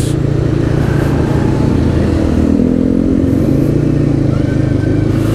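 A motorcycle engine running steadily at low road speed, its pitch rising a little in the middle and dropping back.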